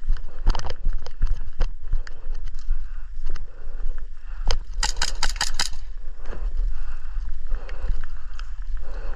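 Irregular clicks and knocks of movement over a low rumble, with a rapid burst of about six airsoft gun shots about five seconds in.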